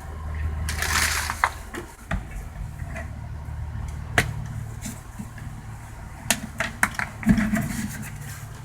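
Clicks, knocks and rustling from handling a plastic jug of vinegar and a bucket as pouring is made ready, over a low steady rumble.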